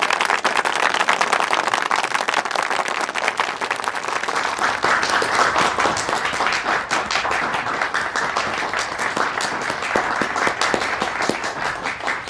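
Applause: a group of people clapping steadily, thinning out near the end.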